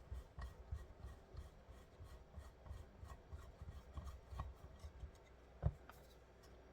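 Faint rubbing, scraping and small taps as a laser stage lighting unit is handled on the bench, with one sharper knock near the end.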